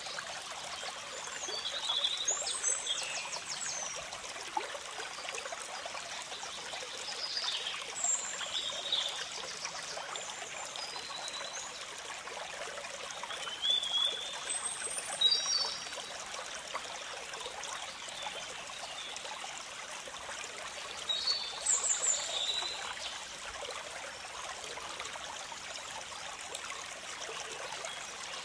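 Shallow stream trickling and splashing over rocks, a steady rush of water, with short high-pitched chirps in a few clusters.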